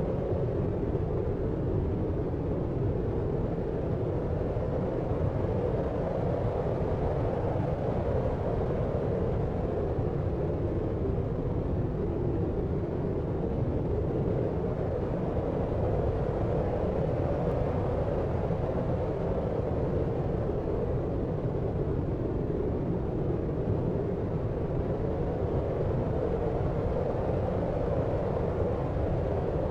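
Steady deep noise for sleep, weighted toward the low end like brown noise. It gives an even low rumble and hush with no separate events, swelling and easing gently every several seconds.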